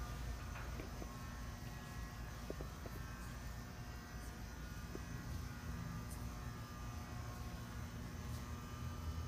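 Steady low hum and buzz, with a few faint clicks scattered through it.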